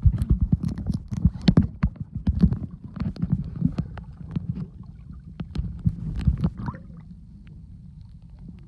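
Underwater water noise from a snorkeler moving through the water, heard from below the surface: a muffled low rumble with many irregular clicks and knocks, calming from about seven seconds in.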